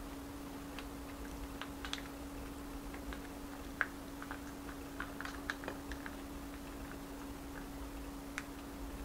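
Hands rolling rice paper around a dumpling filling on a ceramic plate: scattered small clicks and sticky crackles from the wrapper and fingertips against the plate, busiest around the middle, over a steady low hum.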